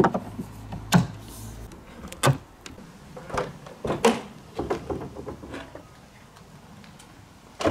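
Irregular sharp clicks and knocks from working on a BMW trunk lid and its gas struts, about a dozen in all, the loudest right at the start, about a second in, two seconds in and four seconds in.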